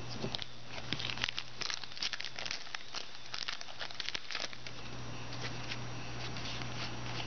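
Foil wrapper of a 2010 Rookies and Stars football card pack crinkling and tearing as it is opened. The crackling is busiest in the first four seconds or so, then thins to lighter rustling as the cards are handled.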